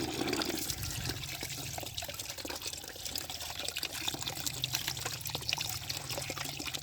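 Water running and splashing over muddy toy vehicles as they are rinsed, with many small clicks and taps mixed into the steady water noise and a low hum underneath.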